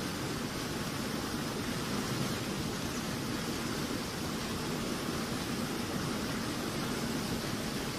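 Steady rush of fast, turbulent water pouring through a dirt channel.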